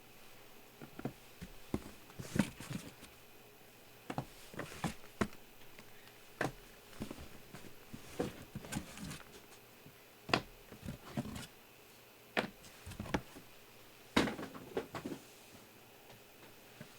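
Irregular light clicks, taps and knocks of hands handling card boxes and packaging on a tabletop, a few sharper knocks among them.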